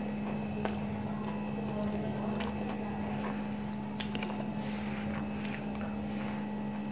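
Faint sounds of a person biting and chewing a mouthful of burger, with a few soft clicks, over a steady low hum.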